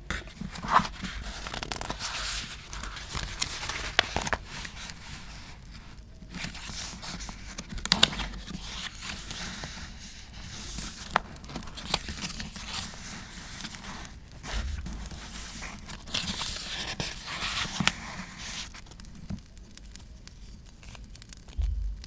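Paper handled for art journaling: sheets torn, crinkled and scraped in irregular bursts, with sharp clicks now and then, over a crackling campfire background.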